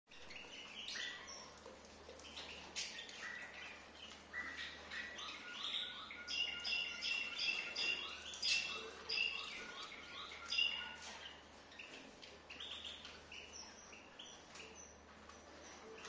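Cockatiels chirping: a busy string of short calls, thickest and loudest in the middle.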